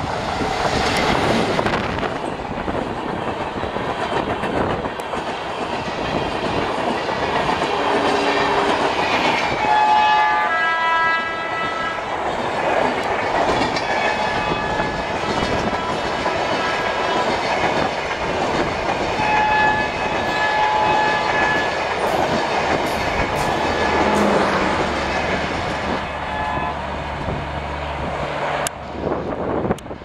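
An Indian Railways WDM-3A diesel locomotive passes at speed, followed by a long rake of LHB coaches rumbling and clattering over the rail joints. The locomotive's twin-tone horn sounds briefly about ten seconds in.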